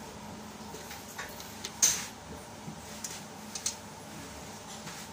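A few scattered metallic clicks and knocks as hands work the fittings on a rotary diesel injection pump on a test bench, the loudest a sharp knock about two seconds in, over a faint steady background hum.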